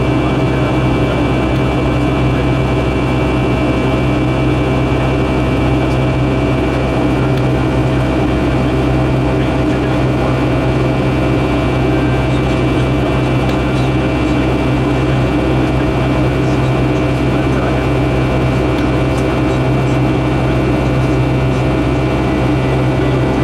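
Pratt & Whitney PW2000 turbofan of a Boeing 757-200 in the climb, heard from inside the cabin: a steady loud drone with several steady whining tones laid over it.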